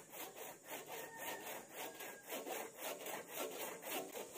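Hand saw cutting through a fallen tree branch with quick, even back-and-forth strokes.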